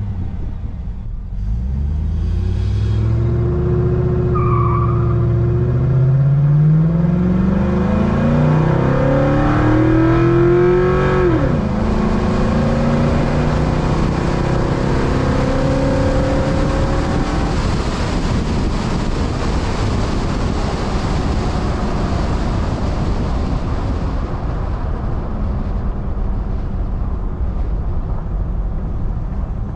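Chevy Silverado's 5.3 L V8, fitted with a cheap aftermarket cold air intake, accelerating hard. The engine note climbs steadily, drops suddenly at an upshift about 11 seconds in, and climbs again. It then gives way to a steady rush of road and wind noise that slowly fades.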